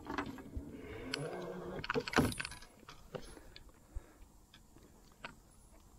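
Rustling, clicks and knocks of a bass being handled out of a rubber landing net in a kayak, with one sharp louder knock about two seconds in and fainter scattered ticks after it.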